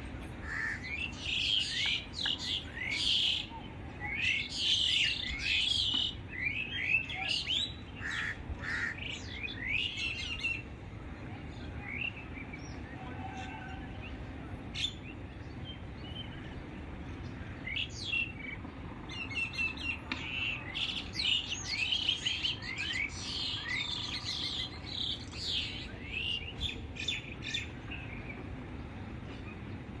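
Songbirds chirping: quick clusters of short sweeping notes, busy for the first ten seconds or so, sparse in the middle and busy again later, over a steady low background noise.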